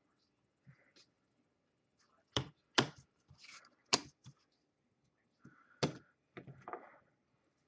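Several sharp knocks of objects being set down or tapped on a tabletop, with light rustling and clicks in between.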